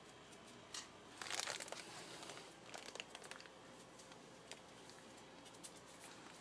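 Faint rustling and scuffing close by from a five-month-old pit bull puppy nosing along the carpet while a hand rubs her head. The loudest burst of rustling comes about a second in, with a second one a little later and scattered light clicks after.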